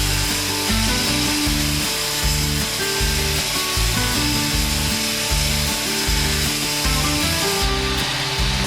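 Grinder running steadily as a steel hammer-eye drift is ground to shape, over background music with a changing bass line.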